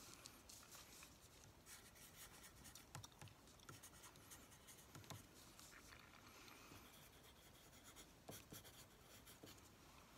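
Faint handwriting on paper: short scratchy pen strokes with small scattered ticks and taps.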